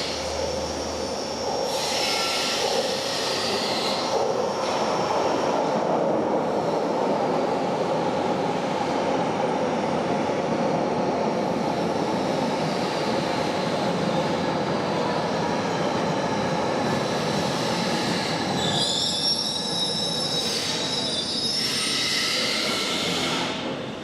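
Berlin U-Bahn train running on the elevated track with a steady rumble. Its wheels squeal shrilly for a moment about two seconds in, and again for several seconds near the end.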